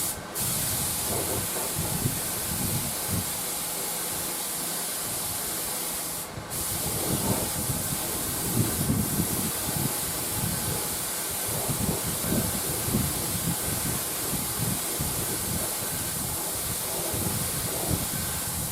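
Spray finish hissing steadily onto a wooden radio cabinet as it gets a fresh coat, with a short break about six seconds in. Low knocks and rustles of handling come and go under it.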